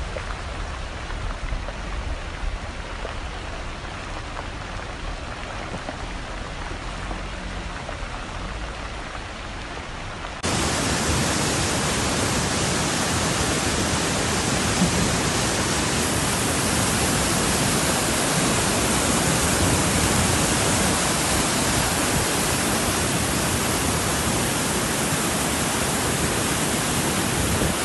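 Rain falling, a steady hiss that jumps louder about ten seconds in.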